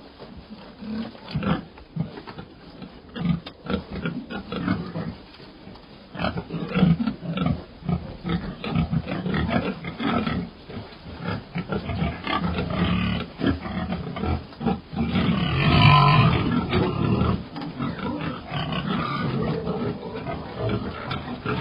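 Pig grunting over and over in short, irregular low grunts, with a louder, longer call about sixteen seconds in.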